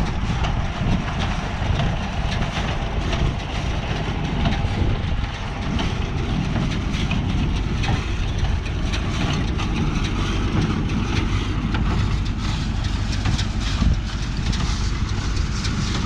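Farm tractor running steadily under load across a hayfield, its engine note low and continuous, with constant rattling and clatter from the machinery.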